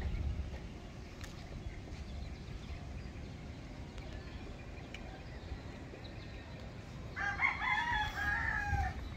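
A rooster crows once near the end, a single call of nearly two seconds, over a steady low rumble.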